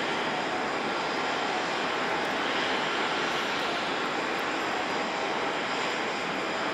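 Airliner jet engines running, a steady rushing noise with a faint high whine over it.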